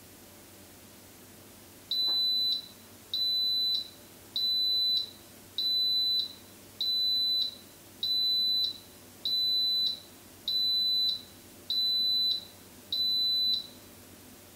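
Instant Pot electric pressure cooker beeping ten times, a high-pitched beep about every 1.2 seconds, starting about two seconds in. The beeps signal that the 2-minute pressure cook has finished and the pot has switched to Keep Warm.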